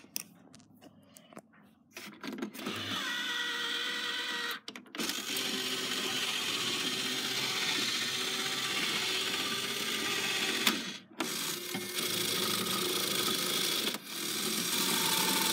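Toy mini claw machine's small electric motors whirring as the claw moves, starting about two seconds in and pausing briefly twice, with a sharp click just before the second pause.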